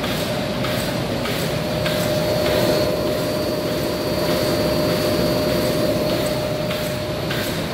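HSC-1300 film slitter-rewinder with a servo perforating slit-in unit running at about 400 metres per minute: a steady machine drone with a held mid-pitched tone and a soft regular pulse about twice a second.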